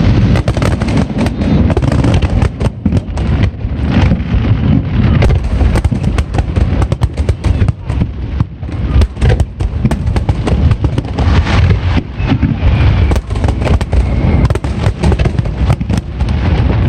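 Fireworks bursting in a rapid, continuous barrage of overlapping booms with crackling.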